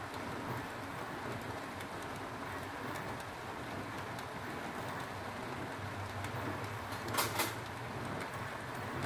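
Foil-wrapped tilapia cooking over a lit gas burner: a steady hiss and sizzle with scattered faint crackles, and a brief louder crackling about seven seconds in.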